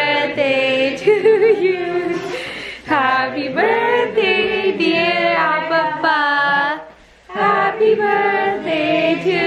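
A small group of voices, women's prominent among them, singing a birthday song together in held, drawn-out notes, with a short break about seven seconds in.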